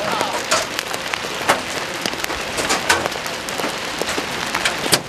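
Large hail pelting down with rain: a steady hiss studded with many irregular, sharp clacks of individual hailstones striking.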